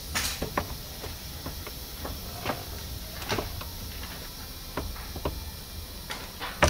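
Acrylic amplifier-rack panels handled and set in place: a dozen or so light, irregular clicks and knocks, over a steady low hum.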